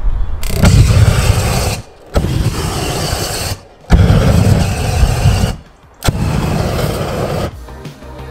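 High-output propane torch inside a giant homemade lighter firing in four blasts of about a second and a half each, each starting and cutting off suddenly with short gaps between. Background music takes over near the end.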